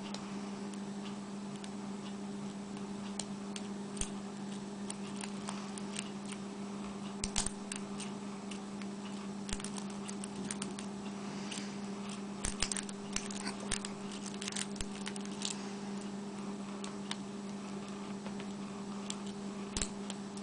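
Lock picks working the keyway of a 40 mm Magnum #240 brass pin-tumbler padlock fitted with spool pins: scattered small metallic clicks and ticks as the pins are picked, over a steady low hum.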